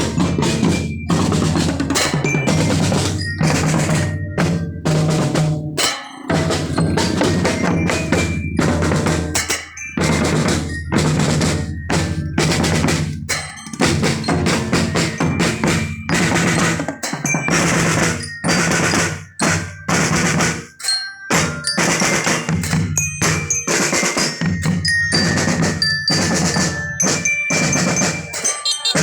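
School marching drum band playing: fast snare and bass drum strokes and rolls, with a melody on marching bells (glockenspiel).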